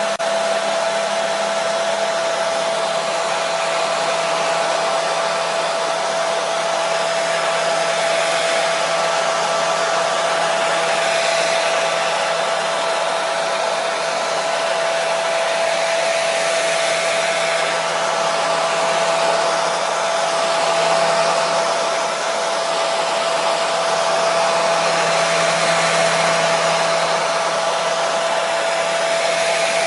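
Hair dryer running steadily: a continuous rush of air with a steady whine from its motor.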